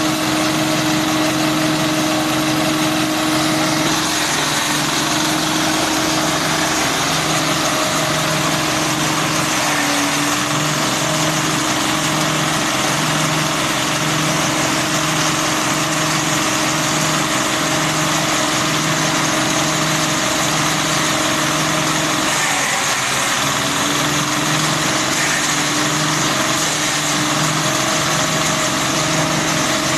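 Single-cylinder diesel engine running steadily, driving a grass chopper that spins with nothing being fed in. The engine keeps an even, regular throb.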